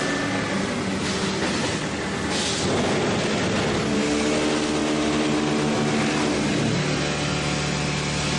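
QT4-20C concrete block making machine running: a steady hum of motors and machinery, its pitch shifting about four seconds in, with a brief hiss about two and a half seconds in.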